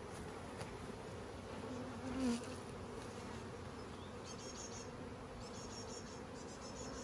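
Honeybees humming around the hives, a steady drone, with one louder buzz of a bee passing close about two seconds in.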